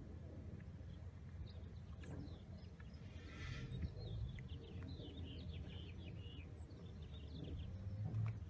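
A few faint, brief bird chirps over a steady low background rumble.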